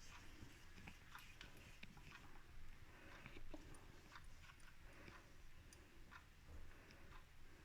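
Faint, irregular sticky clicks of fingers pinching off and rolling a stiff, honey-bound paste of ginger, liquorice-root and asafoetida powders into small pills, over near-silent room tone.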